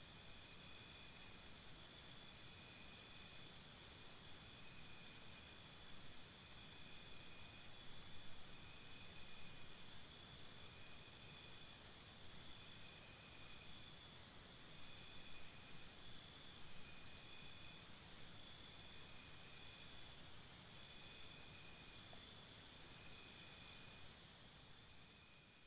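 Crickets chirping: a high, rapidly pulsing trill that swells into louder bouts every few seconds, over a steady background of other insects calling.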